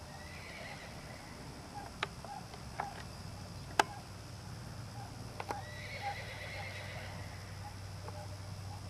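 A horse whinnying twice, each call about a second long, once at the start and again about six seconds in. A few short sharp clicks come in between.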